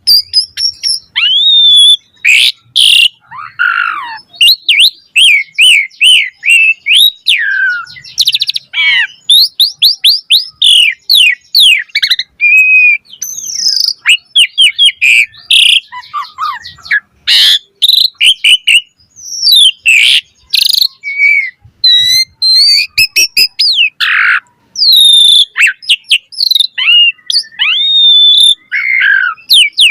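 Asian pied starling (jalak suren) singing a long, varied song: rapid whistled notes, rising and falling sweeps and harsh clicking chatters in quick succession, with only short pauses.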